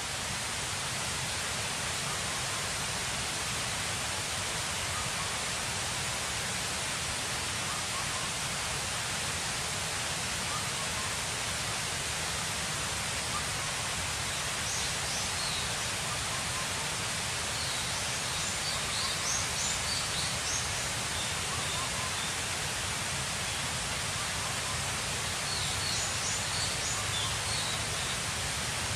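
Steady, even outdoor hiss, with a few short high bird chirps in small clusters about halfway through and again near the end.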